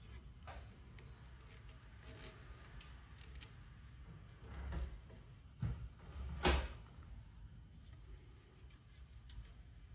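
Faint rustling and tapping of adhesive copper tape being handled and pressed down, with a few short knocks past the middle, the loudest about six and a half seconds in.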